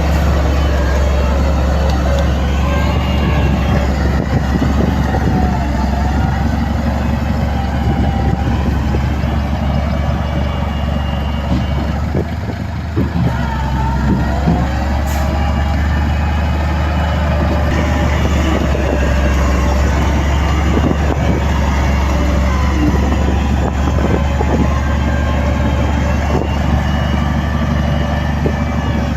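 Heavy diesel earthmoving machinery running steadily under load, a constant deep engine drone.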